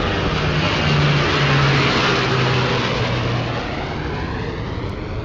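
Jet airliner passing near the airport, its engines making a loud, steady rushing noise with a low hum that drops slightly in pitch, peaking early and then slowly fading.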